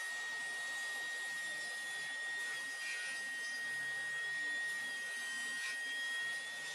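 Table saw running steadily with a constant high whine over a hiss as a board is fed past the blade on a sliding table.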